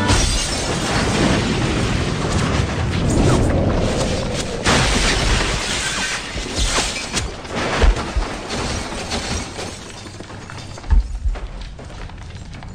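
A bomb explodes in a hospital corridor: a sudden blast followed by a long rush of flying debris that slowly dies away, with scattered clattering pieces and two heavy thuds late on.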